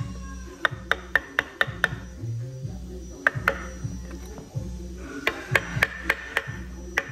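Wooden mallet striking a carving chisel into wood in quick runs of sharp taps, about five a second, with pauses between the runs, over background music.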